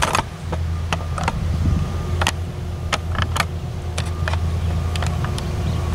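Steady low rumble of an engine, with irregular sharp clicks and knocks over it.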